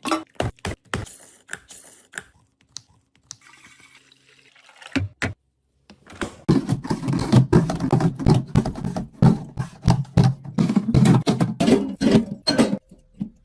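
Rapid clicks and knocks of drink cans and bottles being handled and set into a fridge. The sound is sparse for the first few seconds, breaks off briefly about six seconds in, then turns into a dense run of clatter.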